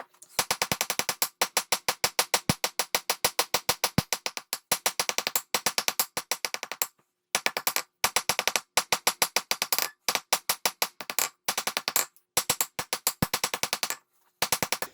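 Hand hammer striking a hot railroad spike on an anvil, a quick even run of ringing blows about five or six a second, broken by a few short pauses.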